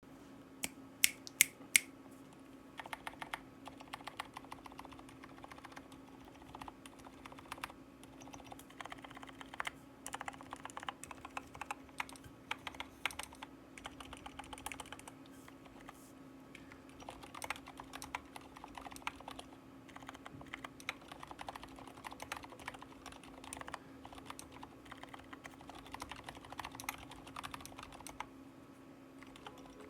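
Typing on a Drop CTRL high-profile mechanical keyboard with 65 g Aliaz silent switches lubed with Krytox 205: a steady run of soft, muted keystrokes in irregular bursts. A few much louder, sharper strikes come about a second in, over a faint steady hum.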